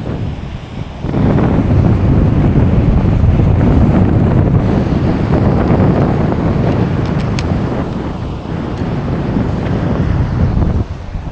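Wind buffeting the microphone in a loud low rumble that builds about a second in and eases near the end, with surf washing underneath.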